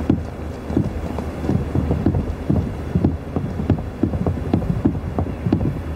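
Footsteps of several people walking on a hard surface, a quick irregular run of knocks over a steady low rumble.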